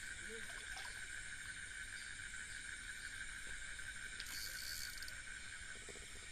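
Steady chorus of night insects: several high trills held at even pitches, with a brief extra buzz about four seconds in.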